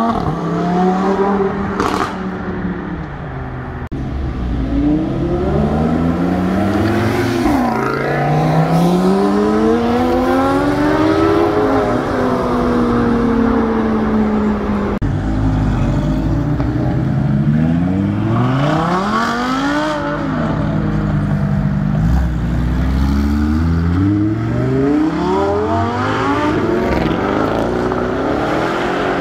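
Supercar engines revving and accelerating hard in a string of short clips, the exhaust note rising and falling in pitch over and over.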